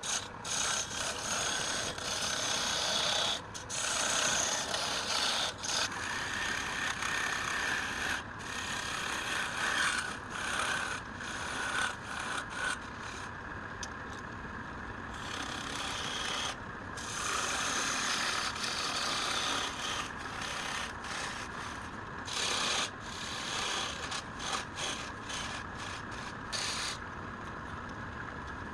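A tool scraping and rasping on wood in long continuous strokes, broken by frequent short pauses; the hiss eases for a couple of seconds about halfway through and again near the end.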